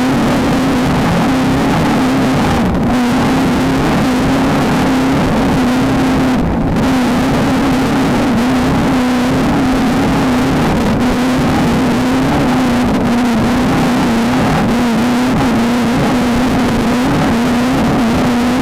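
Off-road desert race car's engine running hard at high, fairly steady revs, its pitch wavering a little, over a loud rush of wind and rough-terrain noise. The hiss eases briefly twice, about three and six and a half seconds in.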